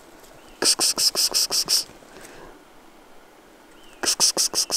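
A rapid, loud chattering call of about nine sharp notes in just over a second, heard twice.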